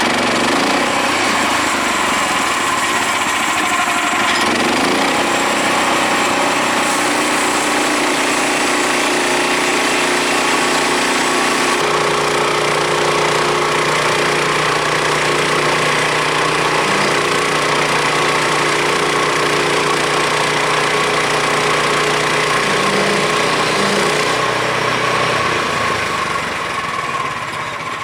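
Woodland Mills HM126 portable bandsaw mill running at full throttle, its gas engine and band blade cutting through a wet cottonwood log. The engine's pitch shifts a few seconds in and again about halfway as the load changes, and the sound eases off near the end.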